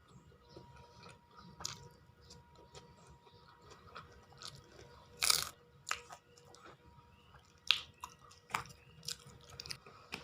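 A person chewing crunchy food close to the microphone: soft wet chewing with about seven sharp crunches, the loudest about five seconds in.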